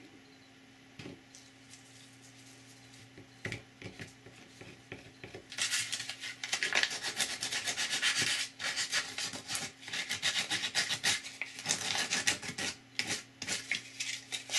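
A few faint clicks and scrapes of a hobby knife on 3D-printed ABS plastic, then, from about five and a half seconds in, rapid scratchy back-and-forth rubbing as the plastic piece is sanded by hand with sandpaper.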